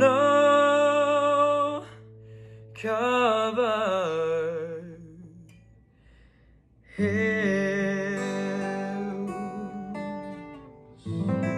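A man's voice sings long held notes with vibrato over a steel-string acoustic guitar. About seven seconds in the guitar strikes a chord that rings and fades, and another chord is struck near the end.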